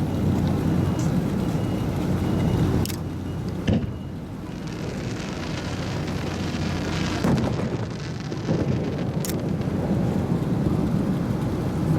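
Aerial fireworks bursting: a continuous low rumble of booms with sharp cracks about three and nine seconds in, and a crackling hiss in the middle.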